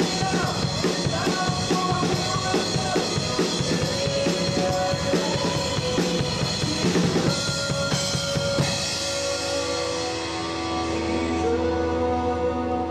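Live band music: electric bass guitar and drum kit playing with other instruments. About two-thirds of the way through the drums stop, leaving sustained bass and chord tones ringing.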